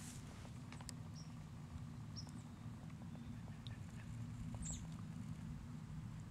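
Faint outdoor background: a steady low rumble with a few brief, high-pitched chirps and small ticks scattered through it.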